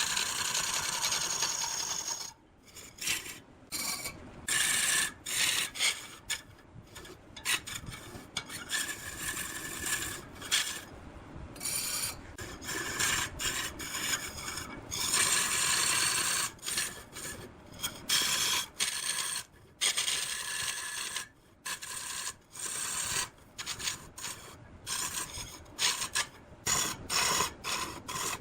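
A tool scraping and cutting wood in repeated rasping strokes that start and stop abruptly, with short breaks between them.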